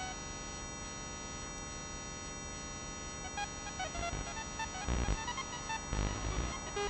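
Synthesized electronic music: a steady droning chord with short beeping notes at changing pitches over it, and low thuds about five and six seconds in.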